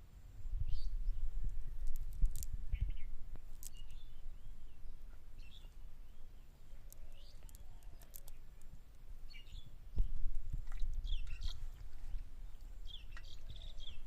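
Small birds chirping in short, scattered calls over a low, uneven rumble.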